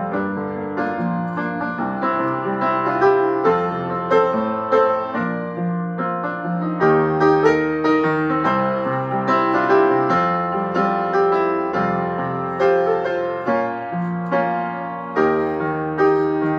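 Solo upright piano playing a flowing run of notes over lower bass notes that change every second or two.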